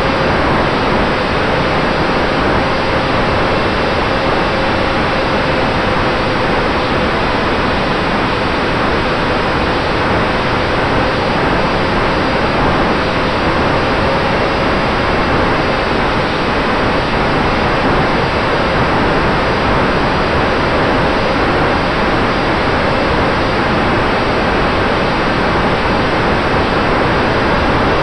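Steady rush of wind over the onboard camera of an Eachine Micro Skysurfer RC plane in flight, with a faint steady motor whine beneath it.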